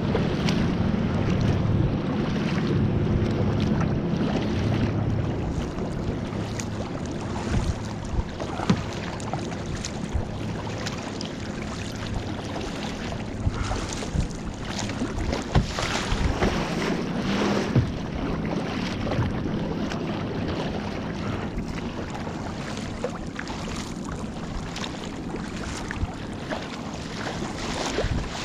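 Kayak paddle strokes splashing and dripping in choppy harbour water, with wind buffeting the microphone and irregular sharp splashes and knocks. A motorboat's engine drone fades out over the first few seconds.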